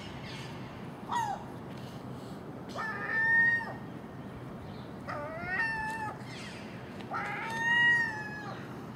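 Common gull giving four drawn-out, mewing calls, each under a second long and slightly rising then falling in pitch.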